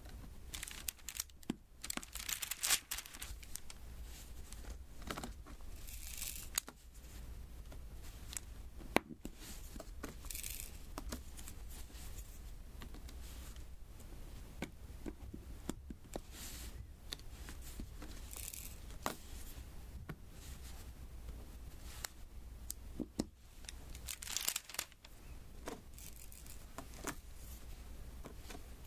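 Diamond painting worked close to the microphone: small clicks of resin drills being tapped onto the sticky canvas, with about six short, high crackly rustles spread through.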